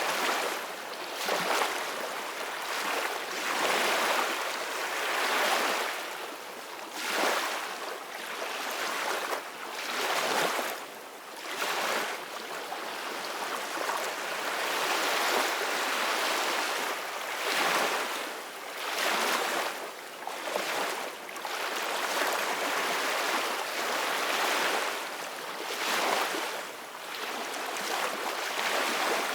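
Soft ocean waves washing in, the surf hiss swelling and fading every second or two.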